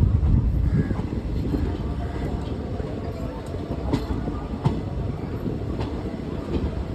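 Passenger train running on the rails: a steady low rumble of coaches and wheels, with scattered light clicks from wheels passing over rail joints.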